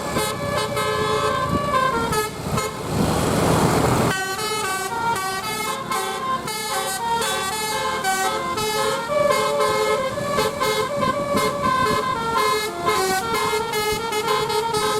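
Bus telolet horn, a multi-tone musical air horn, playing a quick tune of short stepped notes over and over. A burst of rushing noise cuts in about three seconds in.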